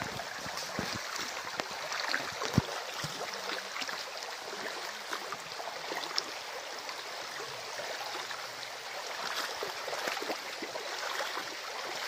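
Shallow stream running over rocks, a steady rush of water, with a few small clicks and knocks over it, the sharpest about two and a half seconds in.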